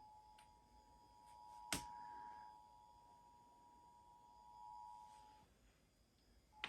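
Emergency Alert System two-tone attention signal: two steady pitches sounding together, faint. It cuts off about five and a half seconds in and starts again just before the end. A sharp click comes a little under two seconds in.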